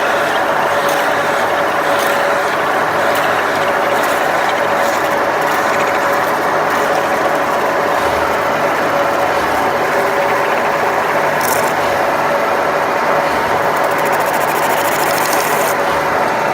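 CNC metal-spinning lathe forming an aluminium blank: a steady, dense mechanical rattle with a held tone running through it.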